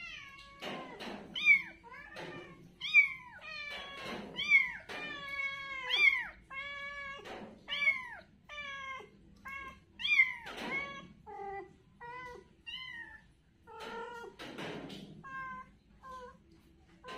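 A young kitten meowing over and over: high, thin calls that mostly fall in pitch, about one every half second to second, with a few short noisy scuffs in between.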